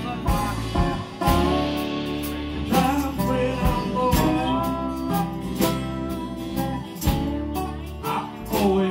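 Two acoustic guitars strummed together in a live song.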